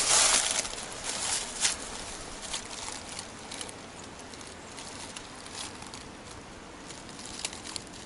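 Footsteps and rustling on dry leaf litter, a burst of crunching in the first two seconds, then a few faint scattered crackles.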